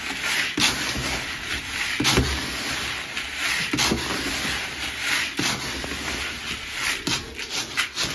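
Dry mixed grain pigeon feed rustling and pouring as it is stirred with a plastic scoop in a plastic bucket, in strokes about every second and a half.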